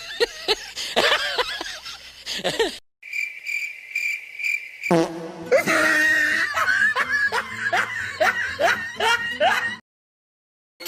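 A string of comedy sound effects: cartoonish high-pitched giggling, then a steady high shrill tone, then fast repeated rising squeaky giggles. It cuts off about a second before the end.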